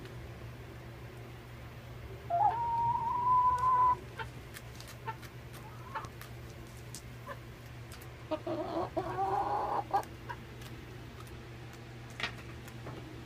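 Young Rhode Island Red hens calling: one long, drawn-out call about two seconds in and another about eight seconds in, with light clicks of pecking between.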